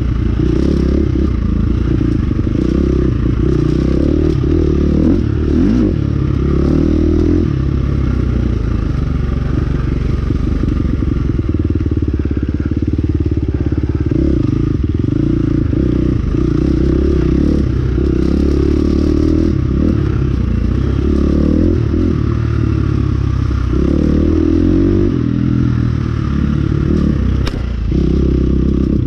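Motorcycle engine running steadily under way, with rattling and clatter from the ride.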